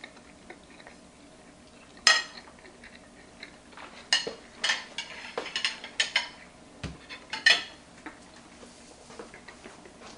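Metal fork clinking and scraping against a plate: a handful of sharp, ringing clinks starting about two seconds in and stopping about five seconds later, with one dull low knock among them.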